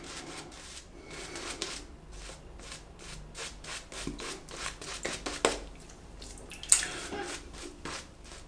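Shaving brush worked briskly over a stubbly face to build shaving cream lather: a soft, wet rubbing in quick repeated strokes, with one sharper click late on.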